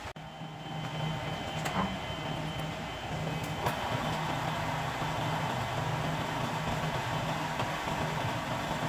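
Step-pulley drill press running with a steady hum. There are a couple of sharp clicks, and from about four seconds in the bit is fed down into a block of camphor wood, adding a rougher cutting noise.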